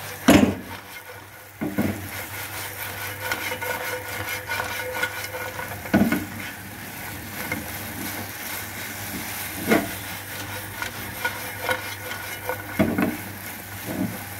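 Battered fried fish pieces being stir-fried in sauce in a nonstick pan over a high gas flame: steady sizzling and spatula scraping, with about half a dozen sharp knocks of spatula and pan, the loudest near the start.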